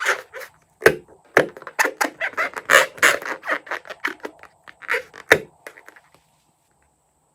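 Slime being squeezed and handled: a quick run of short wet crackling squelches with a few sharp clicks, stopping about six seconds in.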